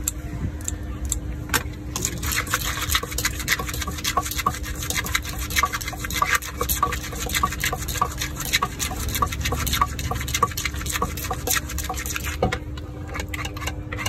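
Wooden pestle pounding and a spoon tossing green papaya salad in a clay mortar: rapid, repeated knocks starting about a second and a half in and thinning out near the end. A steady low rumble and hum run underneath.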